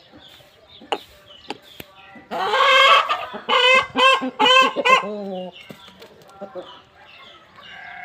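Aseel rooster crowing: a loud opening note a little over two seconds in, then a run of short broken notes, ending on a lower drawn-out note.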